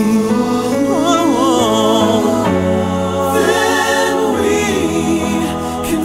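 Pop song sung by a male vocal group in harmony over a backing track, the lead voice sliding through a run about a second in.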